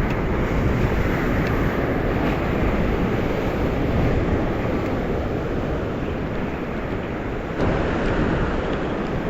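Strong wind buffeting the microphone over rough monsoon surf, a steady loud rush of noise, with a sudden knock and rise in level about three quarters of the way through.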